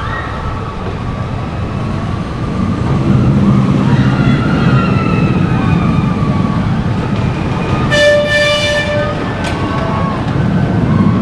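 Rumble of an amusement-park ride running on rails, growing louder about three seconds in, with faint wavering squeals above it. About eight seconds in, a short steady horn-like tone sounds for about a second, with sharp clicks on either side of it.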